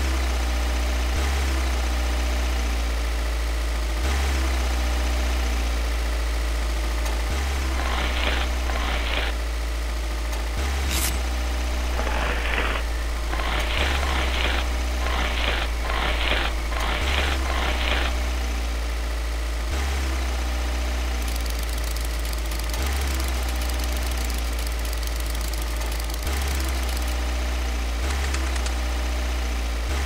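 Steady engine-like running of the miniature rice mill's belt-driven drive, its low hum shifting slightly in pitch every few seconds. Between about 8 and 18 seconds in, rice grains pour and rattle into the mill's hopper in a run of short bursts.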